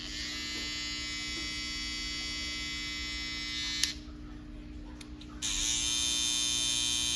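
Babyliss FX cordless hair trimmers buzzing at a high pitch, run in turn for comparison: one runs for nearly four seconds and is switched off, then after a short pause a trimmer is switched on again, rising in pitch as it spins up and running louder. The comparison is between a brand-new trimmer and one made loud by a bent blade.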